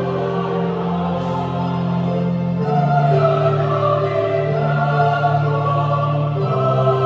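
Youth choir singing a hymn in long held chords, with chord changes about three seconds in and again near the end.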